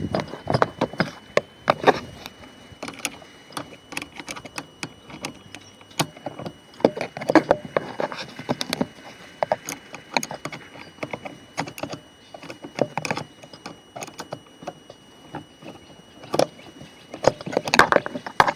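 Irregular clicks, small knocks and rattles of hands and tools handling loose screws and plastic trim parts on a car's interior door panel, with a louder cluster near the end.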